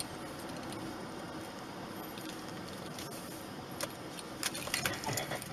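Steady road and engine noise inside a moving car's cabin. A few short clicks or rattles come in during the last second or so.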